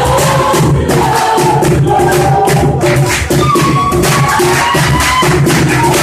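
Group of voices singing together over a steady beat of drums and shakers.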